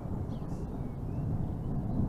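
Distant thunder rumbling low and steady, building slightly toward the end.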